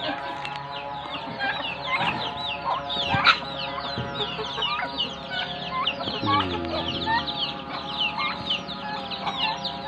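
Backyard poultry flock of chickens, turkeys and ducks calling: a constant stream of short, high, falling peeps mixed with clucks, and one lower call lasting about a second a little after six seconds in, over a steady droning tone.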